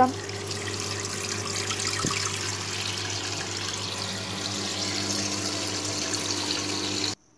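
Toilet cistern filling through a newly fitted fill valve, a steady hiss of rushing water, with the supply's angle stop valve just opened. It stops abruptly near the end.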